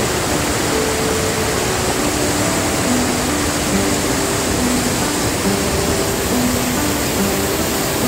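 Steady, loud roar of a large waterfall crashing onto rocks. A slow melody of soft held notes plays faintly underneath.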